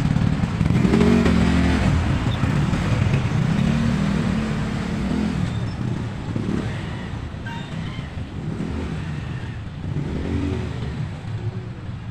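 Motorcycles and scooters passing close by in street traffic, their small engines rising and falling in pitch as they go past. The sound is loudest in the first few seconds.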